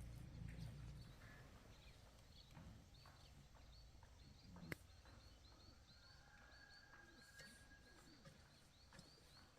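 Near silence: faint outdoor ambience with a small bird chirping over and over, and a single sharp click about halfway through.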